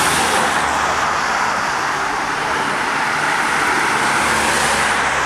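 An ambulance van driving past on the road, with steady tyre and engine noise and no siren.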